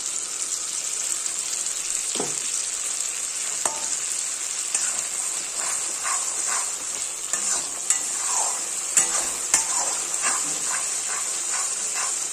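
Ground coriander-leaf paste sizzling in hot mustard oil and spice masala in a kadai, being fried down (bhuna). A metal spatula stirs and scrapes through it, with a run of short scrapes from about a third of the way in over the steady sizzle.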